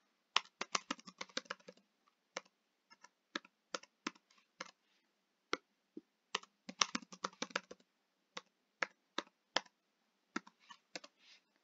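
Computer keyboard keystrokes as a password is typed into two fields: quick, quiet key clicks in irregular runs with short pauses between them.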